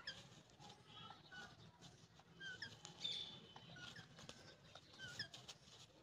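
Indian ringneck parakeets giving faint, short squeaky chirps during mating, a string of them scattered irregularly, the loudest about three seconds in, with a few soft clicks.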